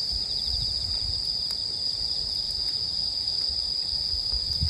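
Crickets chirring in one steady, unbroken high trill, with soft low thuds underneath.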